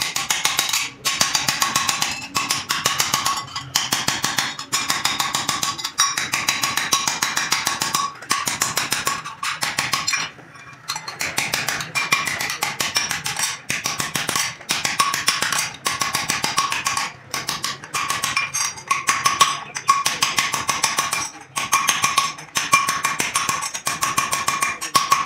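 A small hand hammer rapidly striking a steel disc held on a steel stake, several blows a second, each with a metallic ring: the disc is being hammered into the bowl of a steel cooking spoon. The strikes stop for a moment a few times, about a second in, near ten seconds and around seventeen seconds.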